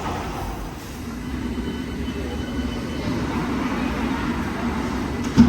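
Docklands Light Railway train, Bombardier-built, departing: a steady low running rumble with a faint motor hum. A brief sharp knock near the end.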